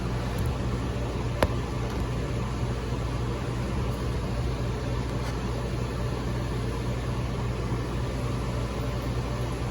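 Steady hum of running electrical equipment and fans, with a low electrical drone underneath. A single sharp click comes about a second and a half in.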